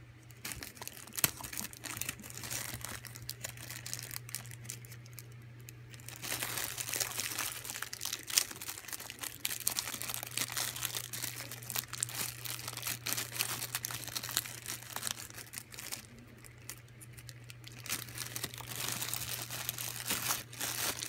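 Small clear zip-lock plastic bag crinkling as it is handled and opened, louder and busier from about six seconds in, with a short lull near sixteen seconds. A steady low hum runs underneath.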